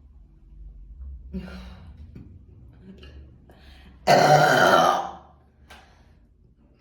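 A woman's burp, loud and lasting about a second, about four seconds in, with a few softer short sounds before it.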